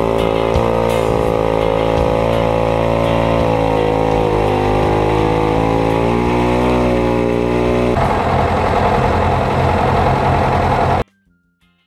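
Vintage two-man chainsaw running and cutting through a large log, its engine note wavering and dipping under the load of the cut. About two-thirds of the way through it gives way to a rougher, noisier engine sound, which cuts off suddenly near the end.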